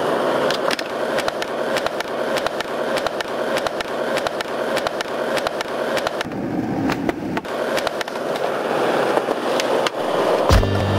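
Skateboard wheels rolling steadily over rough concrete, with many sharp clacks of boards and trucks hitting the ground and a curb.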